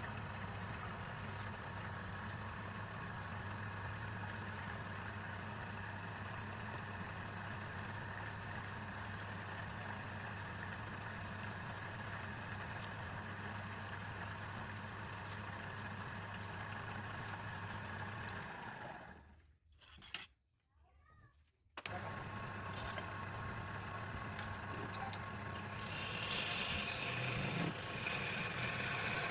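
Woodturning lathe's electric motor running with a steady hum. The hum stops about nineteen seconds in and starts again about three seconds later. A rising hiss of cutting or sanding joins it near the end.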